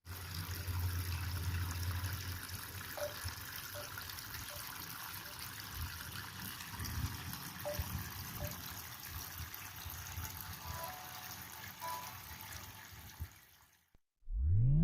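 Water trickling steadily from a small homemade aquarium waterfall, cutting off just before the end.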